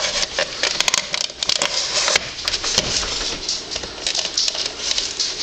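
Hands working at a plastic alarm clock case, trying to pop a part out: a dense run of clicks and scrapes.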